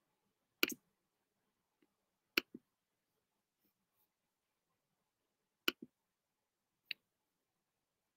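Computer mouse clicks: four sharp clicks spread a second or more apart, two of them doubled by a quicker, softer second click, with quiet room tone between.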